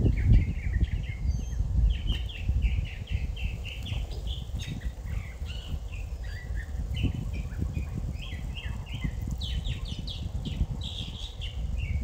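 Songbirds chirping in many short, quick notes, several calls overlapping, over a low rumbling noise.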